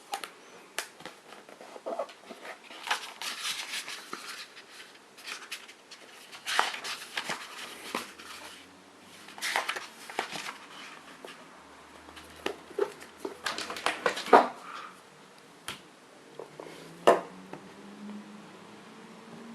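Handling of a hardcover book: irregular taps, knocks and short paper rustles. The sharpest knocks come about 14 and 17 seconds in.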